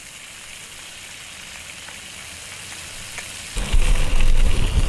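Striped bass pieces frying in a pan on a propane camp stove, a steady sizzle. About three and a half seconds in, a loud low rumble on the microphone comes in over it.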